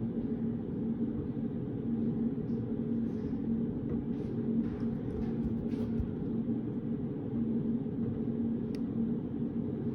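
Steady low background hum of a reading room, with a faint held tone in it. A few faint soft rustles come in the middle, and a light click comes near the end.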